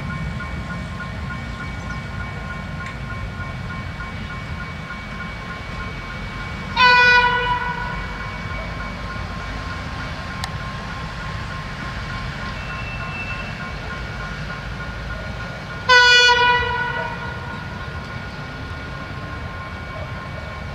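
Approaching train sounding its horn twice, two single-note blasts of about a second each roughly nine seconds apart, over a steady low rumble.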